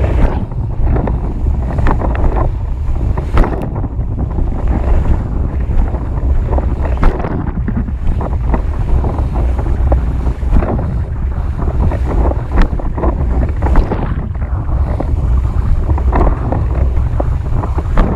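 Heavy wind buffeting the microphone over the hiss and irregular slaps of water against a windsurf board planing across choppy water.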